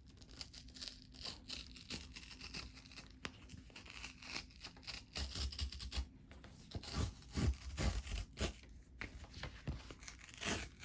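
Packaging being torn open by hand, with irregular tearing and crinkling throughout and a few soft thuds of handling partway through.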